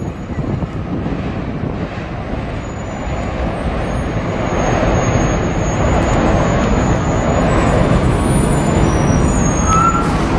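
NJ Transit commuter train rumbling across a drawbridge: a steady rumble that grows louder about four seconds in and stays up.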